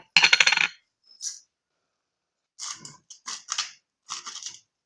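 Salt being dispensed into a bowl of beaten eggs: a loud burst at the start, then a brief one about a second in, and three shorter rasping bursts in quick succession near the end.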